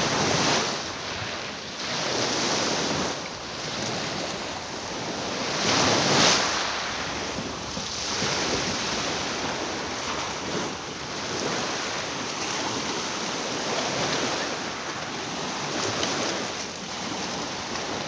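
Small sea waves washing in and breaking on a pebble beach, rising and falling in surges, the loudest about six seconds in, with wind buffeting the microphone.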